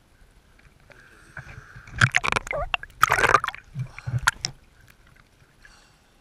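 Water sloshing and gurgling in a run of loud, irregular bursts between about two and four and a half seconds in.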